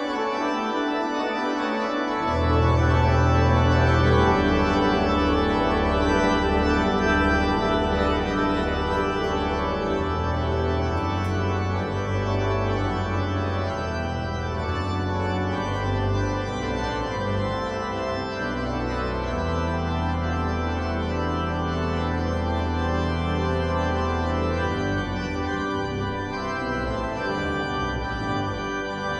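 Organ playing sustained full chords, with deep bass pedal notes coming in about two seconds in and changing every few seconds.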